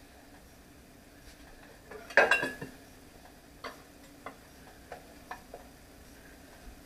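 A metal utensil clatters against a pot of frying oil about two seconds in, ringing briefly, followed by five light clicks and taps over the next two seconds.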